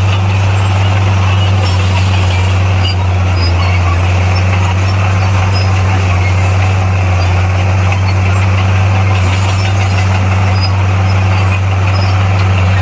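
Bulldozer's diesel engine running steadily, a loud unchanging low drone.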